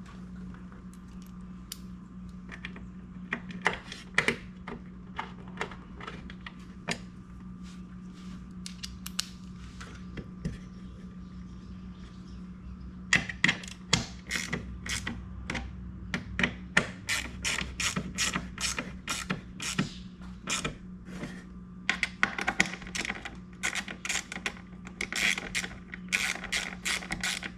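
Ratchet wrench clicking in quick runs as the door-armor panel bolts are driven and tightened. Scattered single clicks at first, then dense runs of rapid clicks about halfway through.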